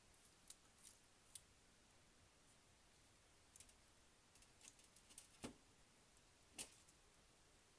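Near silence broken by a scattering of faint, irregular clicks: small screws and the plastic-and-metal parts of a model locomotive's motor block knocking together as they are handled. The two most distinct clicks come in the second half.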